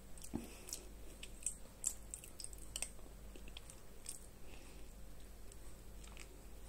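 Mouth sounds of eating yogurt off a spoon, picked up close: soft, wet smacks and clicks, busiest in the first three seconds and sparser after.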